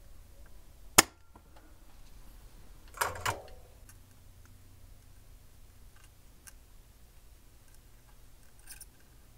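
Spring-loaded solder sucker (desoldering pump) firing once with a sharp snap about a second in as it pulls solder off a capacitor's leads, then two duller clacks about three seconds in, with a few faint ticks afterwards.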